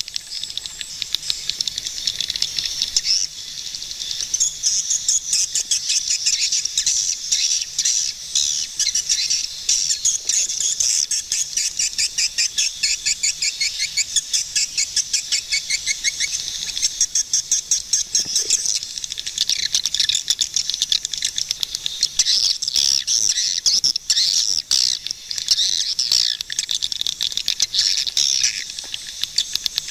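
Swiftlets chirping and twittering continuously: a dense, high-pitched chatter of rapid clicky trills.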